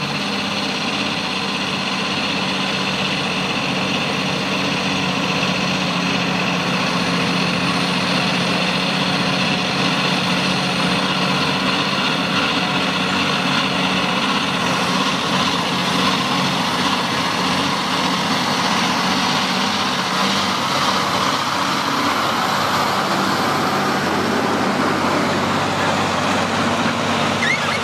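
Heavy truck engine running steadily, growing noisier about halfway through.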